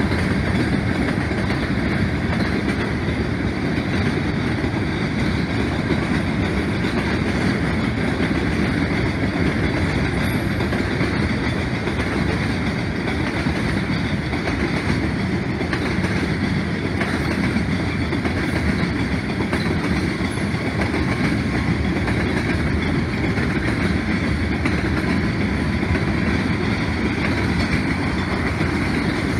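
Freight train of covered hopper cars rolling past: a steady rumble of wheels on rail that does not let up.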